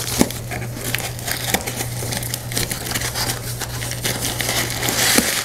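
Cardboard shipping box being opened by hand: the taped flaps and packing tape crinkle and rustle, with many small clicks as a hand rummages inside, the rustling growing denser near the end.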